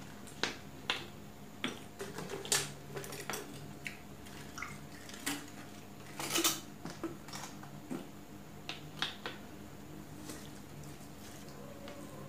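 Plastic water bottle crackling and clicking as it is picked up, uncapped and squeezed while drinking: a string of sharp crackles, the loudest cluster about six seconds in.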